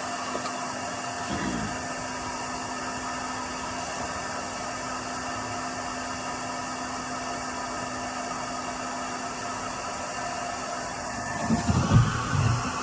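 Heat gun running with a steady blowing hiss and a low hum. A few low bumps come near the end.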